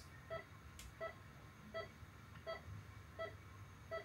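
Faint beeping of a patient monitor: a short tone repeating evenly about every three-quarters of a second, six times, like a heart-rate beep.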